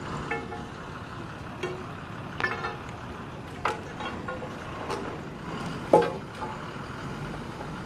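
Diesel engine of an Escorts TRX 2319 pick-and-carry crane running steadily, with a string of sharp clanks over it, the loudest about six seconds in.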